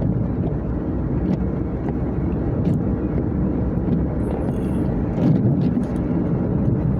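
Road and engine noise inside a moving car's cabin: a steady low rumble, with a few faint ticks scattered through it.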